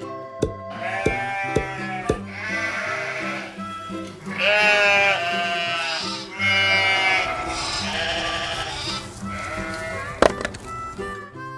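Sheep bleating, about six quavering calls in a row, over cheerful background music, with a sharp click near the end.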